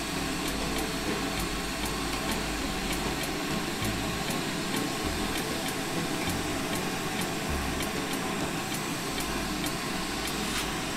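Glassblowing bench torch flame hissing steadily while a glass blank is worked in it.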